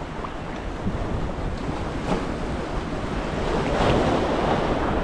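Sea waves washing against the jetty rocks, with wind buffeting the microphone; the wash swells louder about four seconds in.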